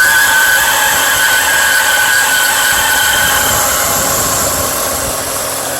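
A 2004 BMW 325i's 2.5-litre inline-six engine running just after a cold start, with a high-pitched squeal from the engine that fades away about three and a half seconds in, leaving the engine running.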